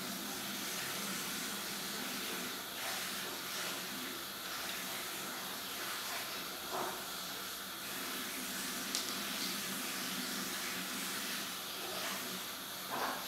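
Steady hiss, with a few faint short sounds over it, among them a small click about nine seconds in.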